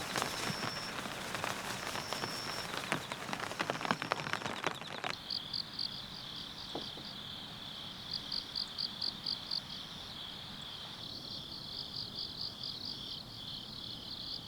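Rain falling with many small drop impacts, cutting off abruptly about five seconds in. After that, insects chirp in high, evenly pulsed trills over a steady high buzz.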